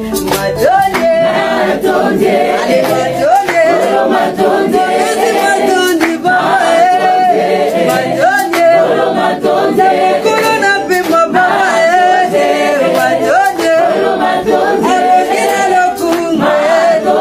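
A woman singing a praise song, unaccompanied, with several voices in harmony.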